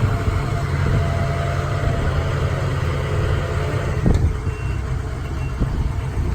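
Safari tour tram running as it rolls along: a steady low engine rumble with road noise, and a single knock about four seconds in.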